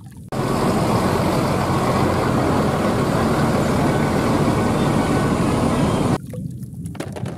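Coach buses running in street traffic: a steady, loud engine and road din. It cuts off suddenly about six seconds in.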